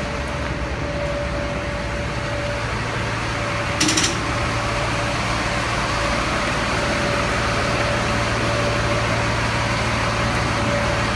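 Fuel truck running steadily with a low hum and a steady whine while its fuel hose is reeled back in; a brief rattle about four seconds in, after which the hum grows slightly stronger.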